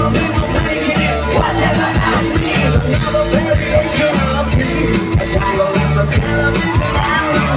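Live rock band (electric guitars, bass and drums) playing loudly through a concert PA, with a lead vocal, heard from the audience.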